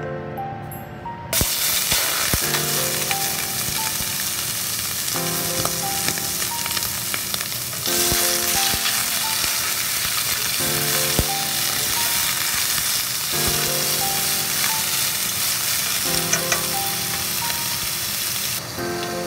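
Squid pieces sizzling and frying in hot oil in a stainless steel pan. The sizzle starts about a second in as the squid goes into the oil and gets louder partway through, with a few sharp taps of wooden chopsticks stirring against the pan. Soft background music plays underneath.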